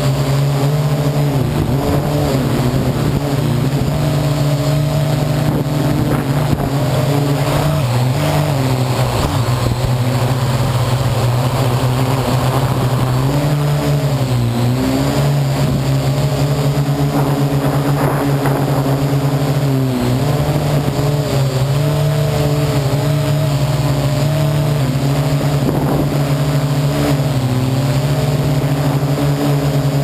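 Parrot AR.Drone quadcopter's four electric motors and propellers, heard from a camera mounted on the drone: a steady buzzing hum whose pitch dips and recovers several times as the motors change speed to steer and hold position.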